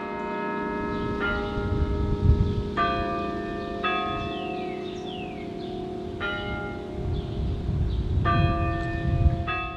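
Church tower bells, played from a keyboard, ringing a slow tune: a new bell strikes about every one to two seconds at a different pitch, each note ringing on under the next.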